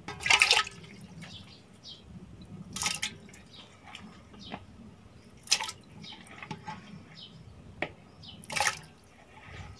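Chunks of raw beef dropped by hand into water in a steel cooking pot, splashing. There are four louder splashes, near the start and about three, five and a half and eight and a half seconds in, with quieter plops between.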